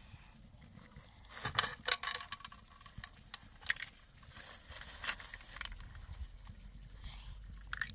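Cracked walnut shells clicking and scraping against a metal plate as the kernels are picked out by hand, in irregular light clicks.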